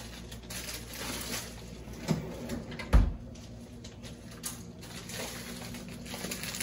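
A few light knocks, then one heavy thump about three seconds in, over a low steady hum.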